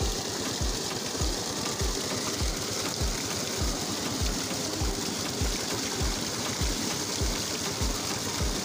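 Tubewell water gushing out of its outlet pipe and splashing into a brick channel. Under the rush of water there is a slow, even low thumping, about one and a half to two beats a second, from the running tubewell's engine.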